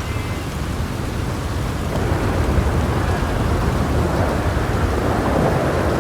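Steady rain with a low rolling rumble of thunder that builds about two seconds in and keeps going.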